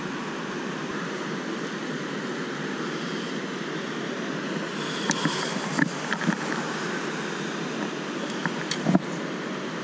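Steady rushing outdoor background noise, with a few sharp clicks and knocks from a fishing rod and reel being worked about halfway through, and again near the end, where the loudest knock falls.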